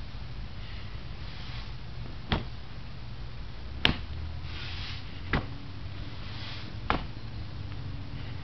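Hands and feet striking a wooden training post: sharp knocks about every second and a half, with soft swishes between them over a low rumble.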